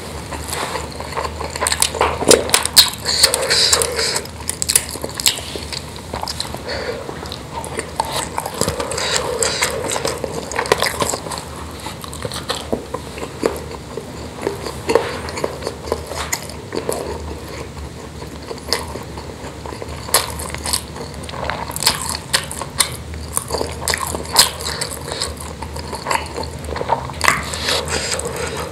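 Close-miked eating sounds: chewing mouthfuls of rice and spicy meatballs, with many short wet mouth clicks and smacks. Fingers mixing rice into the sauce in a steel tray add some light scraping and tapping.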